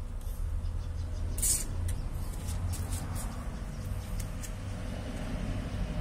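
WD-40 aerosol sprayed through its straw into a car side mirror's folding hinge: one short hiss about a second and a half in, lubricating the hinge to stop it squeaking when it folds. A few faint clicks follow, over a steady low rumble.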